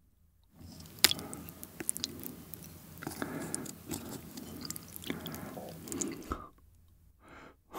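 Chopsticks working a long pork galbi rib through a bowl of spicy cold noodles in broth, gathering the noodles around the meat: close-miked wet squishing and sloshing with sharp clicks, the loudest about a second in. It stops about six seconds in, leaving a couple of faint ticks.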